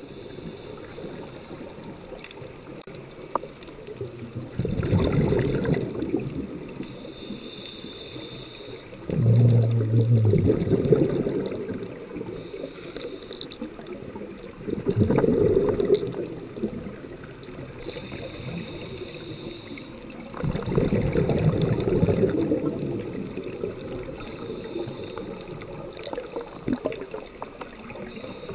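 Scuba diver breathing through a regulator underwater: four bursts of exhaled bubbles gurgling, each one to two seconds long and about five to six seconds apart, with a quieter hiss between them.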